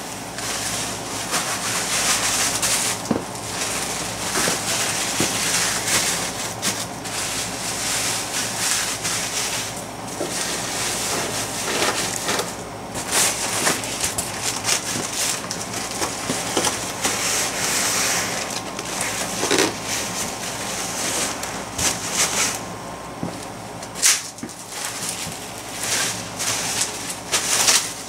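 Plastic packing material, air pillows and bubble wrap, crinkling and crackling as it is handled and squeezed, with a few sharper cracks.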